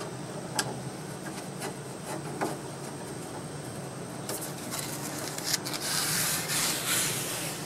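A few light clicks, then from about four seconds in several seconds of rustling and scraping as the fabric-covered headliner board is pushed up and rubs against the roof of a squarebody Chevy Suburban's cab.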